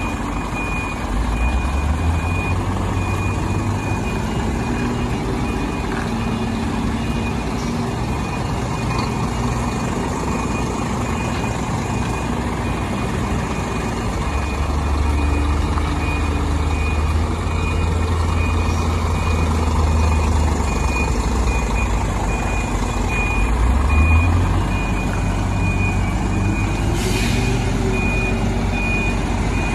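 Scania R540 V8 truck reversing a rodotrem tipper combination, its diesel engine rumbling low and swelling twice in the second half while its reversing alarm beeps steadily. A short burst of air hiss near the end.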